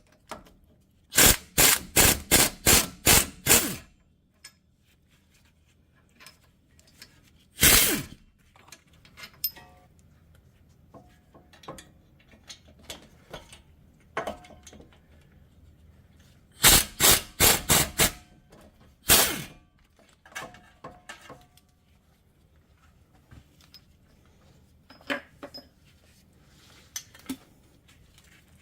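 Hammer blows on metal: a quick run of about eight strikes near the start and a single strike, then about six more in a run past the middle and another single strike, with lighter knocks and clinks between.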